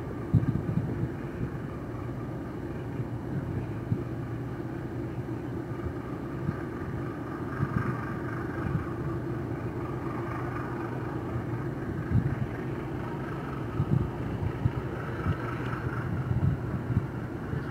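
Steady low hum of a purse-seine fishing vessel's engine as it gets under way out of the harbour, with gusts of wind buffeting the microphone.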